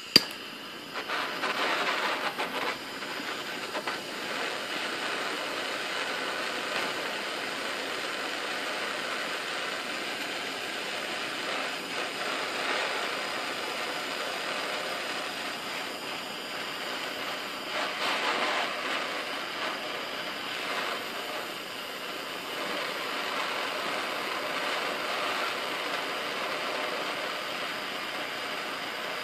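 Handheld propane torch on a cylinder, lighting with a sharp click, then burning with a steady hiss as its flame heats a steel reciprocating saw blade.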